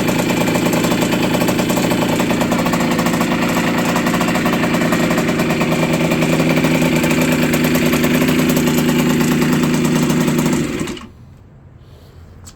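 Two-stroke single-cylinder engine of a 1980 Yamaha YZ50G minibike running steadily, then cutting off abruptly about eleven seconds in.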